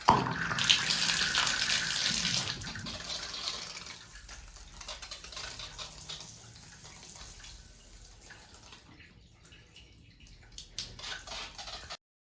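Water running, loudest over the first few seconds and then slowly fading, with a few small clicks near the end.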